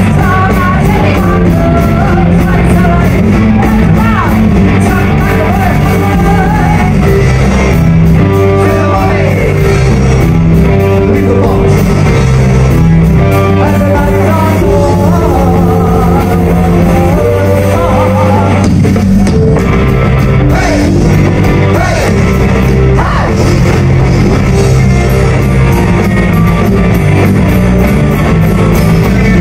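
Loud live punk rock: a woman singing lead over electric guitars and drums.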